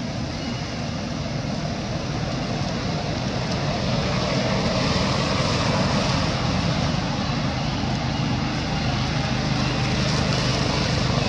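Steady motor-vehicle engine noise, a low hum under a broad rush, growing a little louder about four seconds in.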